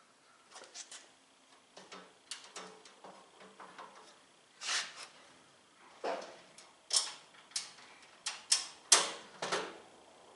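Irregular clicks and metal clanks of a steel tool cart and its bolts being handled during assembly, sparse and light at first, with louder knocks about halfway through and several near the end.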